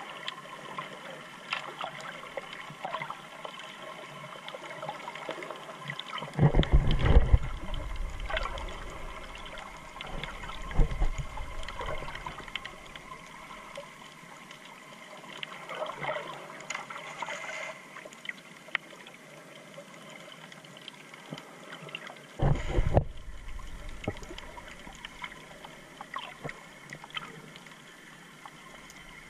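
Underwater sound picked up by a GoPro camera held below the surface: a steady fizzing crackle of water. Louder low rumbles come about six seconds in, again around ten seconds, and once more near twenty-two seconds.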